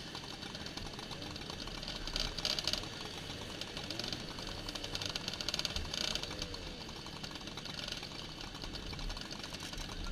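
Small two-stroke moped engines idling close by in a queue: a steady, fast rattle, with brief louder stretches about two seconds in and again around five to six seconds in.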